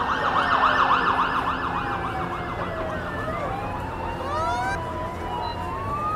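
Several emergency vehicle sirens sounding at once. A fast yelp in the first couple of seconds overlaps slower wails that rise and fall in pitch, over a low engine hum.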